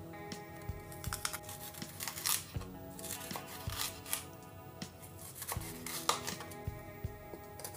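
Kitchen knife slicing a green bell pepper into strips on a wooden cutting board: irregular crisp cuts and taps of the blade on the board, over background music.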